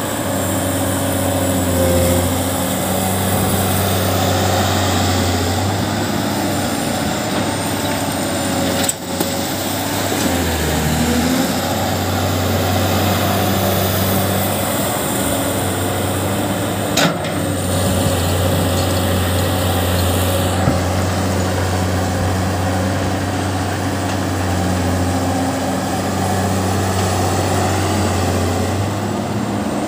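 Heavy diesel engines of excavators and dump trucks running steadily with a low drone, with a short sharp knock about halfway through.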